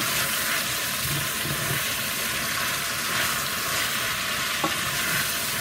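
Amaranth leaves with smoked fish and caterpillars sizzling in a hot stainless steel pot as they are stirred: a steady frying hiss, with a faint click near the end.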